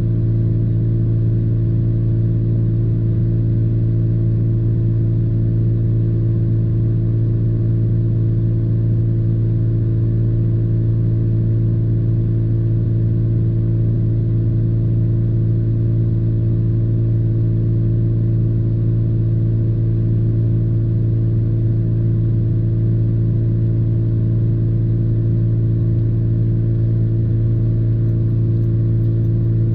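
Parked truck's engine idling, a steady low hum heard inside the cab.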